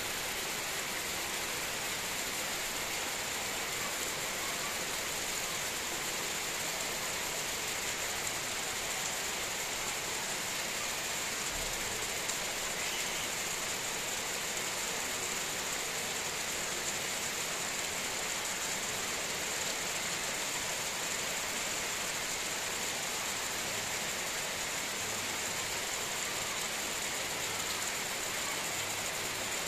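Heavy rain falling steadily on dense tropical foliage, coconut palms and broad banana leaves, making an even, unbroken hiss.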